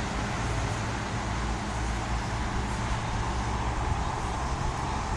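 Steady outdoor background noise, a low rumble with a hiss over it, unchanging throughout.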